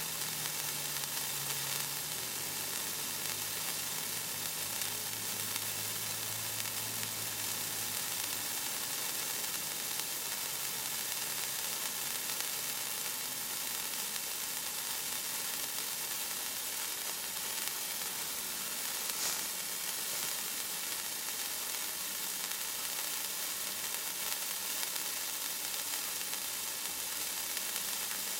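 Handheld spark-stick fountain firework burning, spraying sparks with a steady hiss.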